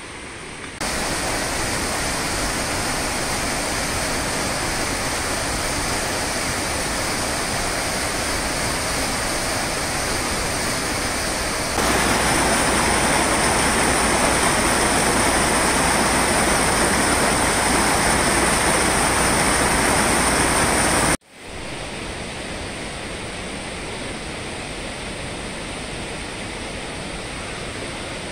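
Rushing water of a rocky mountain stream, a steady hiss. It jumps louder about a second in and again a little before halfway, drops out for an instant about three-quarters through, then carries on quieter.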